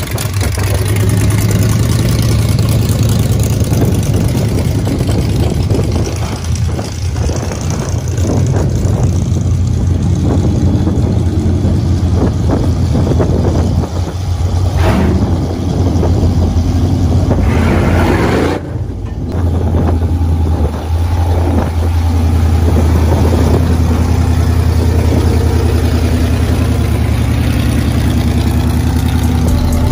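Engines of lifted monster trucks running steadily as they drive past one after another, a deep low drone throughout with a brief swell a little past halfway.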